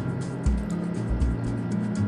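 Background music with a steady beat: low bass notes under deep kick-drum thumps and light high ticks.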